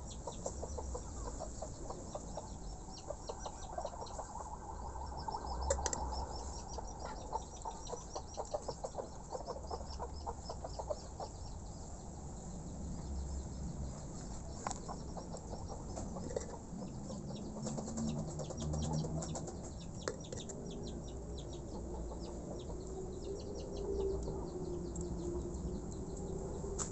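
Chickens clucking, with birds chirping high and rapidly throughout.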